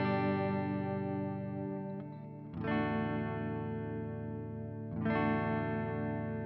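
Flying V electric guitar on its neck pickup with a clean amp tone, strumming ringing chords. A new chord is struck at the start, another about two and a half seconds in and another about five seconds in. The sound is taken straight from the Marshall amp head's USB output.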